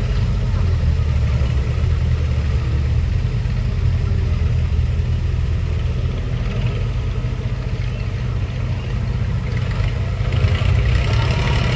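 Heavy diesel engine running steadily with a low rumble. It grows louder and brighter near the end.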